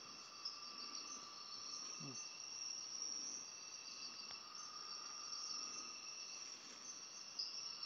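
Steady night chorus of crickets and other insects, several continuous trills at different pitches sounding together. There is a short low murmur about two seconds in.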